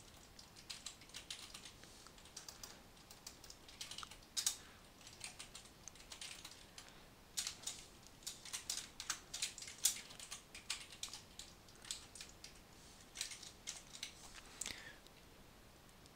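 Typing on a computer keyboard: faint, irregular runs of keystrokes with short pauses between them, the longest pauses about six seconds in and again around twelve seconds in.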